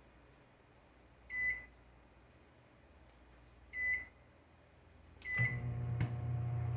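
Microwave oven beeping three times, short high beeps about two and a half seconds apart, then the oven starts running with a steady low hum, and a click about half a second after it starts.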